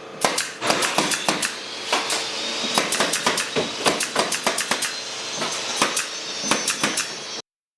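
A run of irregular sharp knocks and clicks of carpentry work on a wooden cabinet, a few a second, breaking off abruptly near the end.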